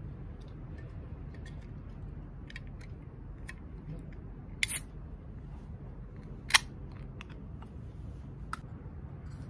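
Fingers and fingernail clicking and scraping at the ring-pull of an aluminium soda can as it is pried open, with two much louder sharp snaps of the tab, one about four and a half seconds in and one about six and a half seconds in.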